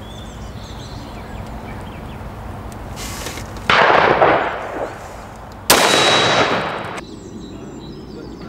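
Two shots from a Schmeisser SP15 straight-pull .223 rifle, about two seconds apart, each ringing out for about a second after the crack.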